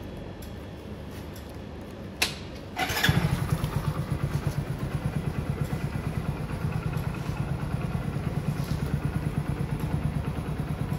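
A click, then a motorcycle's electric starter whirring briefly about three seconds in. The engine catches and runs at idle with a steady, rapid pulse.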